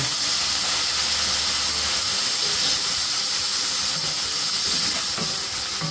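Ladle of chicken broth hitting a hot skillet of sautéing onions and peppers, sizzling and steaming with a steady hiss as the liquid cooks away.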